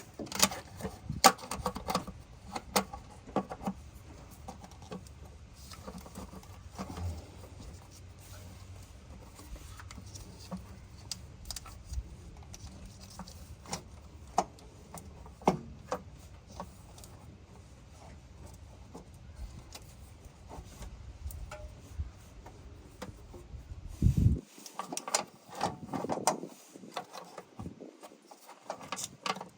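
Scattered metallic clicks and clinks of tools and small parts being handled while a car starter's wiring and cover are refitted, over a low steady hum that cuts out about 24 seconds in, followed by a few louder knocks.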